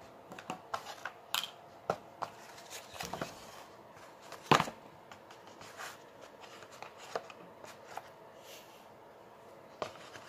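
Makeup items being handled and lifted out of a moulded plastic tray: scattered light clicks, taps and plastic rattles, with one louder knock about four and a half seconds in.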